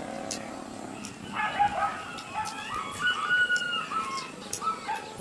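A rooster crowing, one drawn-out crow of about three and a half seconds that starts just over a second in.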